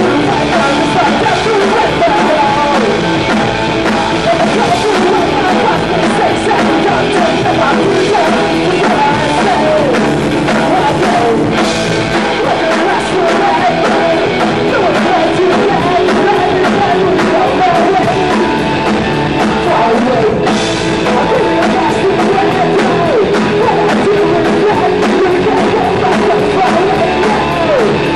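Live punk rock band playing loud: electric guitar and drum kit, with a man singing lead vocals into a microphone.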